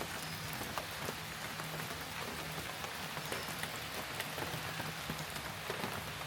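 Heavy rain falling steadily, with many separate drop hits ticking through it.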